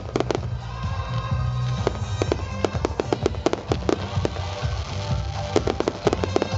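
Aerial fireworks bursting: a rapid string of sharp bangs and crackles, thickest in a long volley through the middle and another near the end, with music playing underneath.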